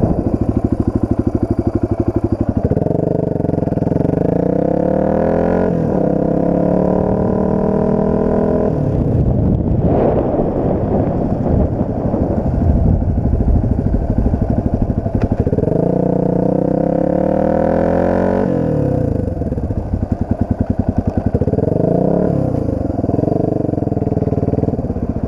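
Dirt bike engine accelerating hard several times, its pitch climbing and then dropping at each gear change, with a rougher off-throttle stretch in the middle and short throttle blips near the end.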